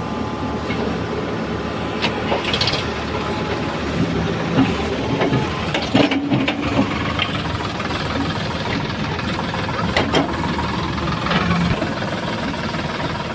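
Heavy diesel engine running steadily, with a few short knocks over it.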